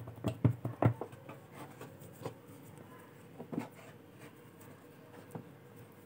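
Hands folding and pinching a sheet of dough on a rolling board: a quick run of soft taps and rubbing in the first second, then a few fainter, spaced taps.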